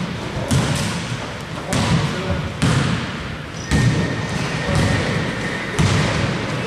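Basketball being dribbled on an indoor court, a bounce roughly once a second.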